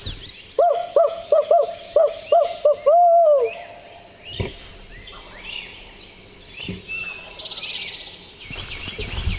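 Barred owl hooting: a rhythmic run of about eight hoots that ends in one longer, falling note. High songbird calls run behind it, and a fast, high bird trill comes near the end.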